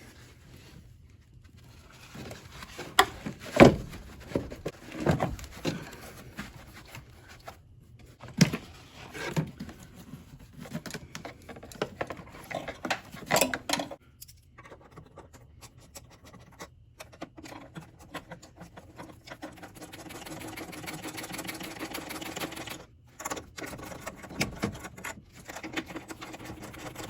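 Clunks, knocks and scrapes of a new car battery being set into its tray and the hold-down bracket being fitted, with one heavy thump a few seconds in. A stretch of fast, fine mechanical clicking follows in the second half.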